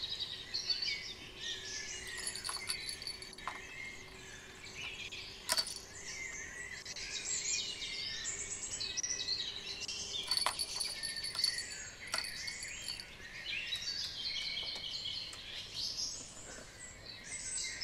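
Several songbirds singing and chirping at once, a dense mix of short high trills and chirps, with a few sharp clicks, the loudest about five and a half seconds in.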